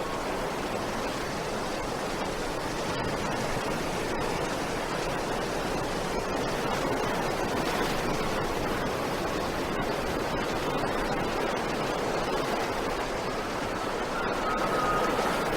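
Strong wind rushing steadily through vegetation, an even, unbroken roar of noise. A faint thin steady tone comes in near the end.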